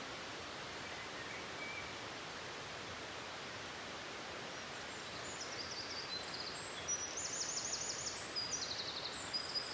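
Steady rush of a waterfall, with a bird singing high, rapid trilled phrases over it from about halfway through.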